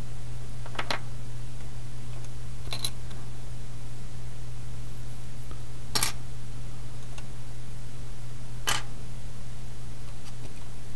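Steady low electrical hum with four separate sharp clicks spread through it; the loudest click comes about halfway.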